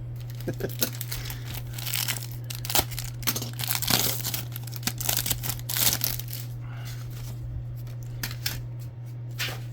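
Foil trading-card pack wrapper being torn open and crinkled, in irregular crackling bursts, over a steady low electrical hum.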